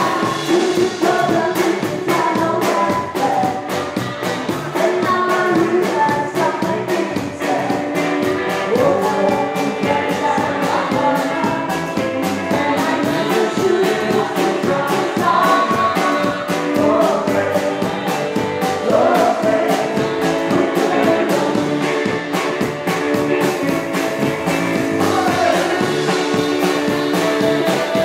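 Rockabilly band playing live, with a singer over a fast, steady drum beat.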